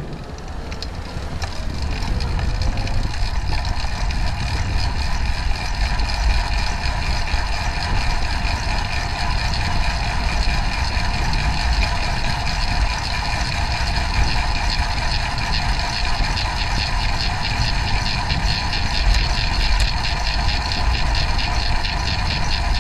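Wind and road noise on a moving bicycle's camera microphone: a constant low rumble with a steady hum above it. It builds over the first couple of seconds as the bike picks up speed from the lights, then holds.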